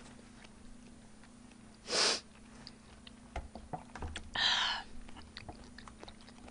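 A short, sharp sniff about two seconds in, then faint clicks and a brief rustle around the middle as her hand works at the paper lid of a cup of instant ramen, over a low steady hum.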